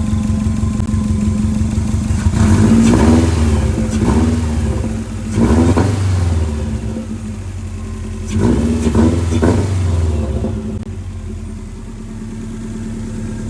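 Freshly swapped JDM Version 7 STI turbocharged 2.0-litre flat-four running, revved up three times and dropping back to idle after each, then idling steadily. The engine still needs a tune.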